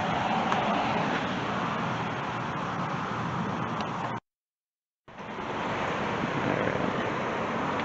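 Steady outdoor rushing noise of distant road traffic and wind on the microphone. It drops to complete silence for about a second a little past halfway, where the recording is cut.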